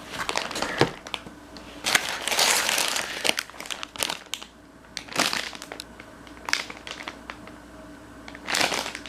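Plastic packaging crinkling and rustling as it is handled and opened, in several irregular bursts with short pauses between.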